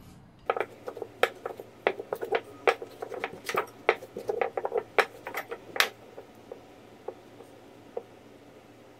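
A rolling pin knocking and clicking on a pastry mat as wholemeal dough is rolled out: an irregular run of sharp taps for about six seconds. Then it goes quiet apart from a single tap near the end, as the dough is rolled up by hand.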